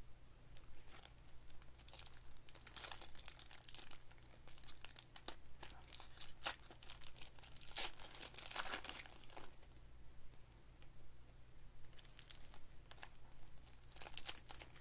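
Plastic-foil trading card pack wrappers being torn open and crinkled by hand, in irregular bursts of crackling, with quieter handling of the cards between.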